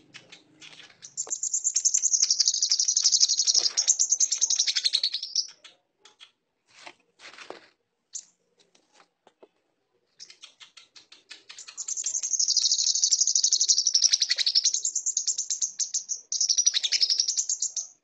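Brown-throated sunbird (kolibri kelapa) singing in two long bouts of rapid, high chattering: one from about a second in lasting some four seconds, the other from about ten seconds in to the end, with a few short notes between them. Its song is filled in with learned lovebird-style chatter.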